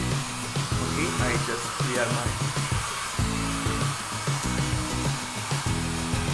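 Handheld hair dryer blowing steadily over wet watercolour paper, with background music playing underneath.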